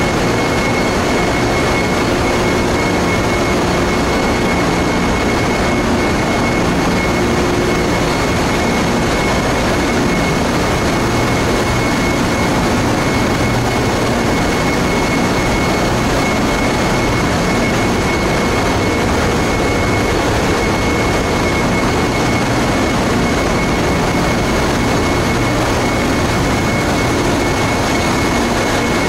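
Ship's engine-room machinery running: a loud, unbroken din of engines, pumps and ventilation, with a thin steady high whine over it.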